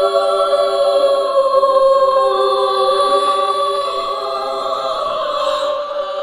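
Spooky opera-style horror ambience: layered choir-like voices holding long, slowly wavering notes together.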